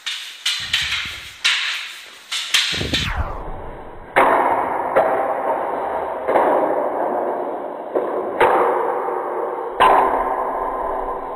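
Wooden practice weapons clacking together in quick, irregular strikes during partner sparring. From about four seconds in, six harder hits come at uneven intervals, each followed by a long ringing decay.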